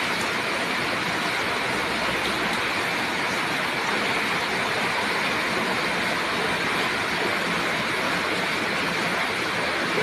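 Steady, unbroken rush of floodwater under heavy rain.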